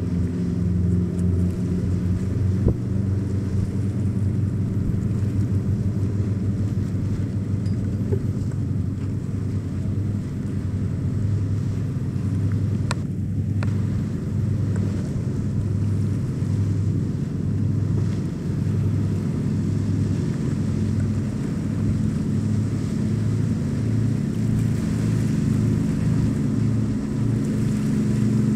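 Engines of large sportfishing boats motoring past through the inlet: a steady low drone with a break about halfway and louder near the end as a boat passes close.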